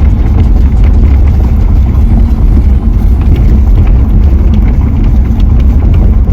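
Steady low rumble of a car driving, heard from inside the cabin, with faint light ticks and rattles over it.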